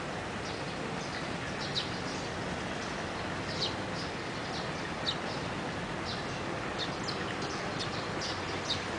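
Small birds chirping: short, high chirps scattered irregularly, about one a second, over a steady outdoor background hiss.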